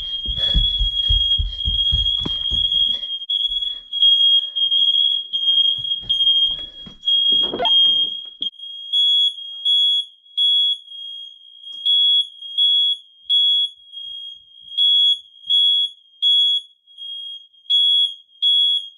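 Household smoke alarms sounding in test: a shrill, high beep that runs almost unbroken for the first several seconds, then splits into separate even beeps about one and a half a second. Low thumps sound under it for the first three seconds.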